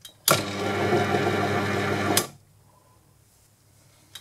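A click, then the Proxxon PD 250/e mini-lathe starts and runs with a steady motor hum for about two seconds before stopping abruptly. It is driving the lead screw for a pass of an internal single-point threading tool cutting an M8 thread in a steel nut.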